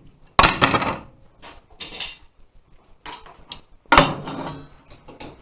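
Metal tools being picked up and set down, clanking and clattering, with two sharp knocks about half a second and four seconds in and lighter clicks between.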